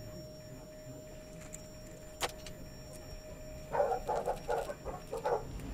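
A small screwdriver turning a tiny screw in a miniature engine's steel part, with metal handling noises: a single click, then a quick run of short scratchy clicks about two-thirds of the way in. A faint steady hum runs until the clicks begin.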